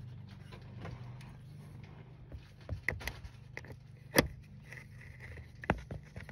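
Scattered sharp metal clicks and clinks of an 8mm socket being fitted onto a battery terminal clamp bolt, the loudest about four seconds in, over a steady low hum.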